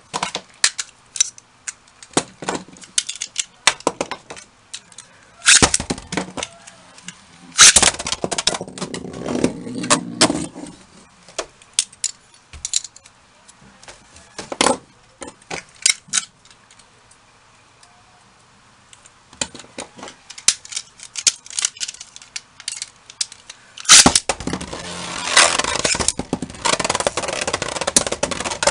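Metal Beyblade spinning tops (Lightning L-Drago and Poison Serpent) clattering and striking each other in a clear plastic Zero-G stadium: scattered sharp clicks and knocks, with busy bursts of rattling collisions about a third of the way in and again over the last few seconds.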